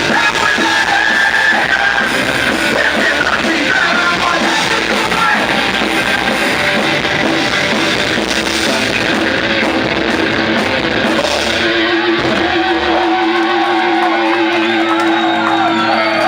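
Live rock band playing loud, with electric guitar, drums and shouted singing. About twelve seconds in the drums and bass drop out and a single held, wavering note rings on.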